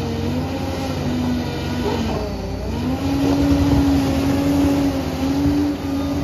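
Liebherr PR 746 crawler bulldozer's diesel engine running under load, a steady pitched drone that sags about two seconds in and picks up again a moment later.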